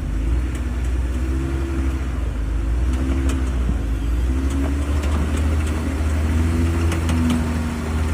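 An off-road vehicle's engine working under load as it climbs, with a deep steady rumble and revs that rise and fall several times, and a few light knocks.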